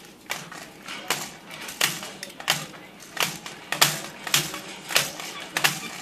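Umbrella cockatoo knocking and clacking a hard plastic cage toy with its beak, a sharp clack about every two-thirds of a second, nine in a row.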